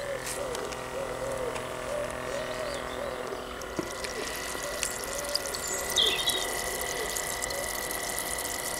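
Small solar-powered air pump of a floating pond aerator running with a steady buzz, "a bit like a box of bees", while the air it pumps bubbles out of the hose in the water.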